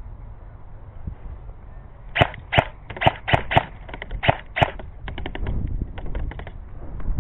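Airsoft gun firing about seven single shots, sharp cracks spread over two and a half seconds, followed by a quicker, fainter run of clicks. A low wind rumble on the microphone runs underneath.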